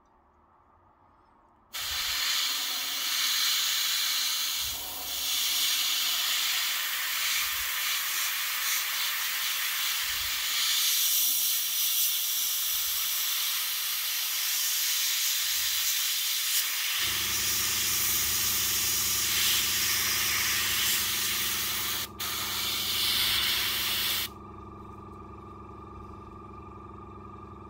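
Airbrush spraying paint with a steady hiss of air, starting about two seconds in, breaking briefly once, and stopping a few seconds before the end. About two-thirds of the way through, the small compressor's motor starts up with a steady hum and keeps running after the spraying stops.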